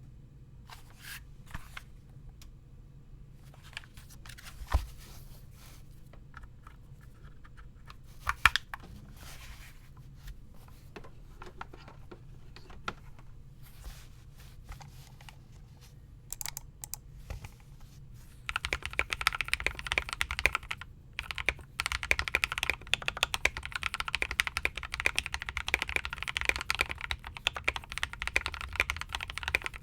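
Logitech Pro X mechanical keyboard with lubed Gateron Pro Milky Yellow linear switches, PE foam and tape mod, being typed on. First come scattered single key presses, two of them louder, then from about two-thirds of the way in a steady run of fast typing.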